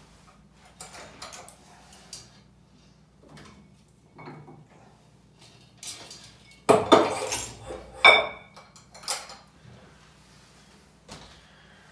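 Metal weight plates clinking and clanking as they are handled and loaded to raise the weight. A few light clinks, then two loud clanks about seven and eight seconds in, the second ringing briefly.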